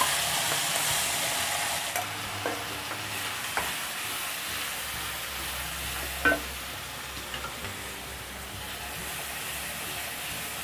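Wet spice paste frying in hot oil in an aluminium kadhai: a steady sizzle, loudest as the paste goes in at the start, while it is stirred with a wooden spoon. A few sharp knocks of the spoon against the pan, the clearest about six seconds in.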